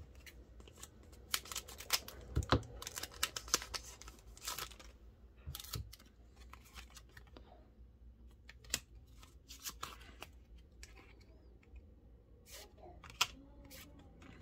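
Scissors snipping open a foil Pokémon trading-card booster pack, with crinkling of the wrapper, in a quick run of snips and crackles over the first few seconds. After that, scattered lighter clicks and rustles as the cards are pulled out and handled.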